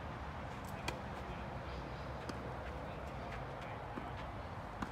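Tennis ball being hit with rackets and bouncing during a rally: a few sharp, short pocks about a second or so apart, the clearest about a second in and near the end, over a steady low background rumble.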